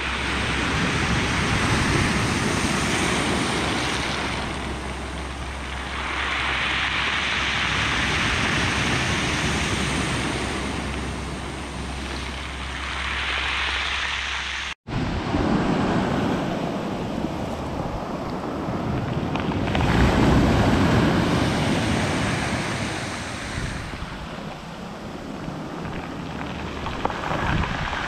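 Sea surf breaking and washing up a pebble beach, swelling and ebbing every few seconds, with wind rumbling on the microphone. The sound cuts out for an instant about halfway through.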